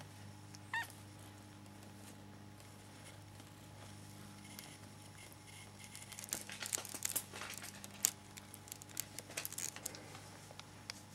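A kitten gives one short mew about a second in. From about six seconds, a wicker basket and its lace lining crackle and rustle in quick irregular clicks as a hand rubs the kitten and she squirms in it.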